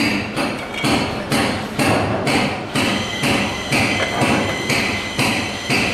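Steady metal hammering, about two blows a second; from about halfway through, each blow leaves a short ringing tone.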